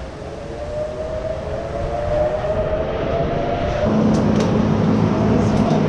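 Motorcycle engine running and growing louder, its pitch slowly rising as it pulls in. About four seconds in it turns into a louder, rougher, steady running at close range.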